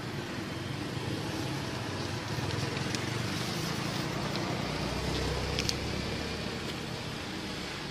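Steady traffic noise from passing road vehicles, with a low rumble that swells about halfway through and a few faint clicks.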